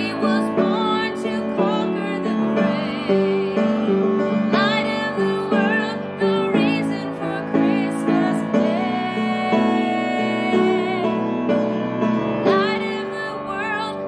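A woman singing solo over piano accompaniment, holding long notes with vibrato.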